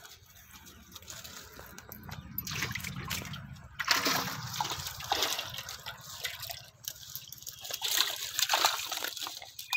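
Irregular splashing and sloshing in shallow muddy water as fish are handled in a cast net, louder from about three seconds in.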